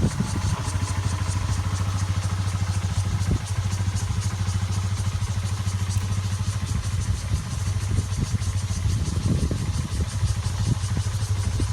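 An engine idling steadily with a fast, even putter, over a high, pulsing buzz of insects. A few soft knocks come about three seconds in and again near the end.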